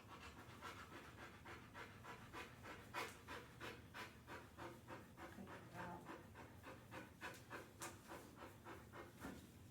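Large dog panting faintly and steadily, quick rhythmic breaths at about three a second.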